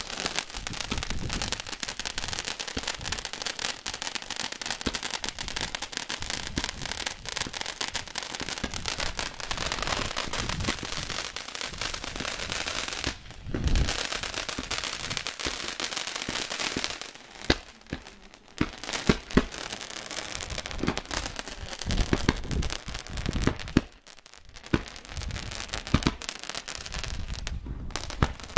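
Ground-fired consumer fireworks going off: a dense, continuous crackling with many small pops, broken by a short gap about halfway, after which the crackling resumes with several louder single bangs.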